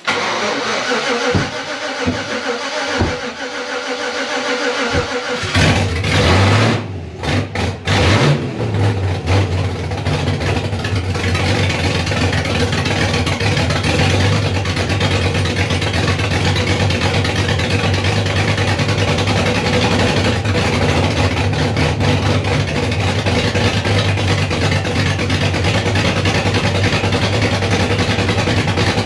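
Freshly rebuilt 5.3-litre V8 cranking on the starter, catching about five seconds in, stumbling and revving unevenly for a few seconds, then running steadily on its first start after the rebuild.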